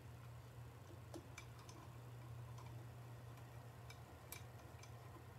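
Faint, scattered clicks of a Phillips screwdriver and steel screws against the CB350 cam base as the four cam base screws are turned down until their heads just seat, over a steady low hum.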